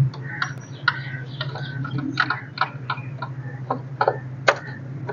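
Irregular sharp metallic clicks and ticks of hand tools working on a car battery's terminal clamps and hold-down while it is being removed, over a steady low hum.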